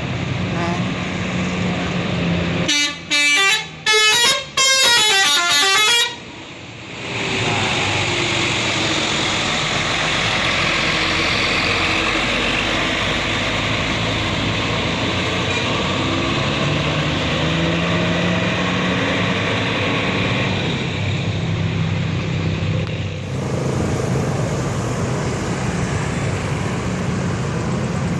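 A bus telolet horn plays a short melody in several quick bursts about three seconds in. After that a bus engine runs steadily.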